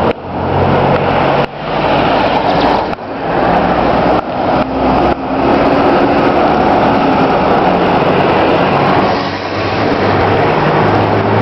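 A heavy diesel vehicle or machine runs loudly amid dense street and roadworks noise, its low engine note shifting in pitch. The sound cuts out for split seconds several times in the first five seconds.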